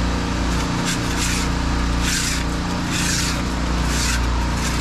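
Pressure washers running: a steady low drone, with the hiss of the spray jet rising and falling in several bursts as it blasts marine growth off a boat hull.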